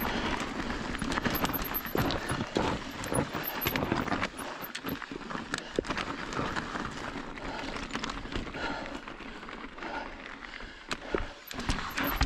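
Mountain bike rolling over a rocky, gravelly trail: tyres crunching over rock and grit, with frequent rattles and knocks from the bike.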